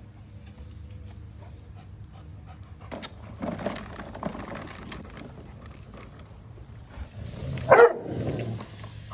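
Rottweiler panting and sniffing, then one loud bark about three-quarters of the way through.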